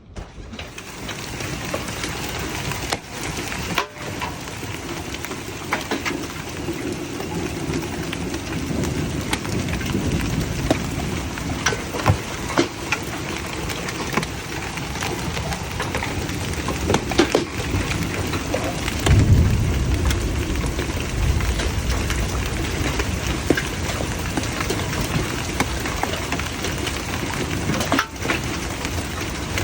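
Heavy rain and hail pelting down, a dense steady hiss peppered with sharp impacts, with a low rumble of thunder about nineteen seconds in.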